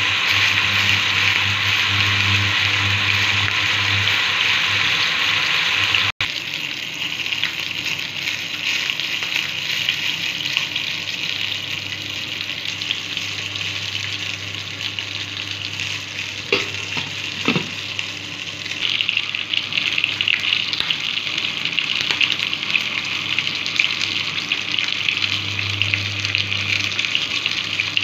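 A pot of water with fish pieces heating on an induction hob and coming to the boil: a steady hissing and bubbling over a low hum. The hiss grows stronger in the last third as the pot boils up, and there are two short knocks about two thirds of the way through.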